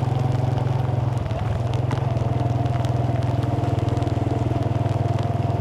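Small motorcycle engine running steadily with an even, fast pulsing hum that does not change in speed.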